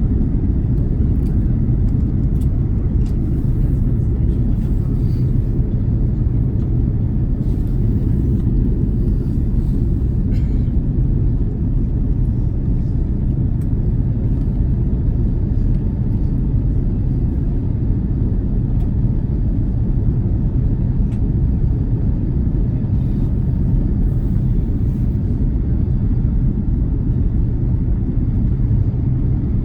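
Steady low rumble of an Airbus A330 heard inside the passenger cabin: engine and airflow noise, even throughout.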